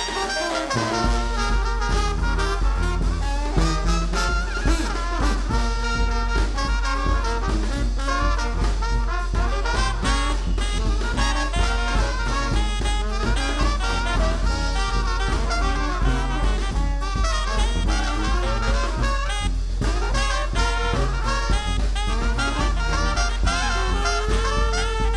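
New Orleans brass band playing live: trumpets, trombone and saxophone over a sousaphone bass line and drums, with a steady beat.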